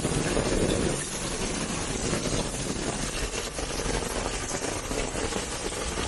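Heavy rain falling in a steady, dense hiss and patter.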